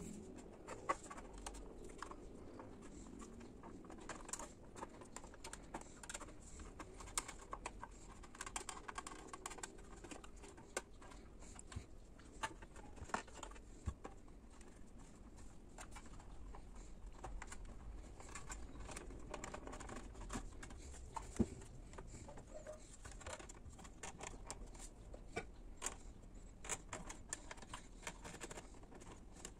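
Faint, irregular clicks and taps of rubber grommets being worked by hand onto a plastic motorcycle tail cowl.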